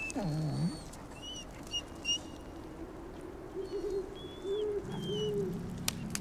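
Dogs whining: short high-pitched cries and a falling whine at the start, over a lower drawn-out wavering whine; a sharp click near the end.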